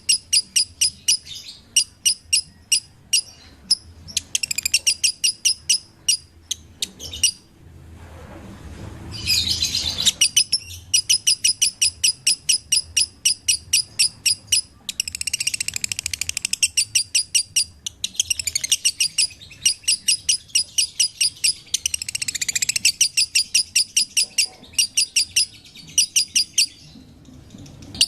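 Pet lovebird chirping in long runs of rapid, high, evenly repeated notes, several a second, broken by short pauses. About a third of the way in, the run gives way to a brief harsher, noisier chatter.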